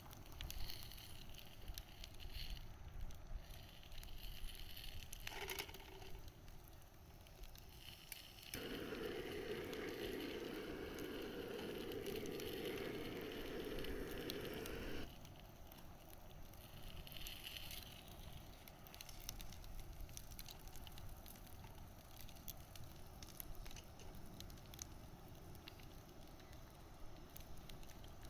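Wood bonfire crackling, with many small irregular snaps and pops. For about six seconds in the middle, a steadier rushing noise starts and stops suddenly.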